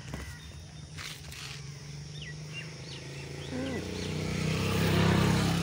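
A motor vehicle's engine passes by, growing louder to a peak about five seconds in, then fading. Short bird chirps are heard before it.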